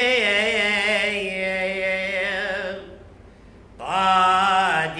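A priest's solo voice chanting a liturgical hymn, holding a long wavering note for nearly three seconds, pausing for breath, then starting the next phrase about four seconds in.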